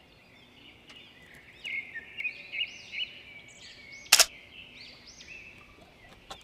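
Songbirds chirping in short repeated high-pitched phrases, with one sharp click about four seconds in.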